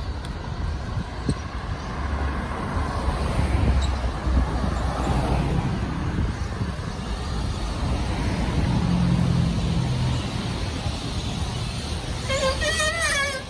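City street traffic: cars driving past with a steady rumble of engines and tyres on the road. One engine's low hum stands out about nine seconds in.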